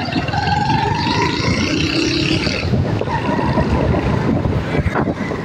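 Busy street traffic: motorcycle engines running past amid general road noise. A held, slightly rising tone sounds over the first two and a half seconds, and there is a sharp click about five seconds in.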